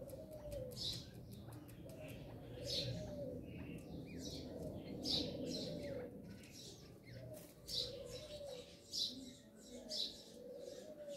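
Chukar partridge chicks peeping: short, high calls repeated every half second or so. A lower wavering call repeats underneath.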